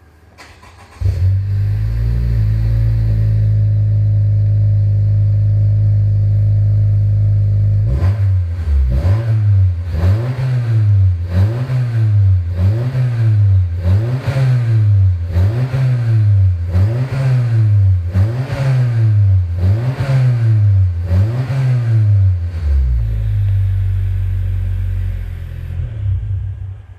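A 10th-generation Honda Civic FK7's 1.5-litre turbo engine, breathing through a Spoon N1 muffler kit, starts about a second in and idles steadily. It is then free-revved in quick repeated blips about once a second, held to around 3,000 rpm while stationary. It settles back to idle and is switched off just before the end.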